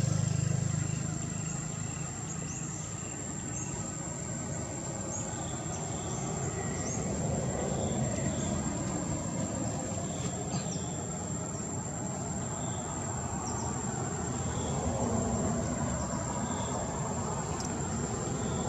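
Outdoor ambience: a steady low rumble of distant traffic under a constant high-pitched insect drone, with short chirps repeating about once a second.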